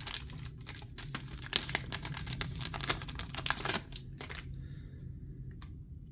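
Plastic trading-card packaging being torn open and crinkled: a quick run of crackles and clicks that stops about four and a half seconds in, with one more click shortly after.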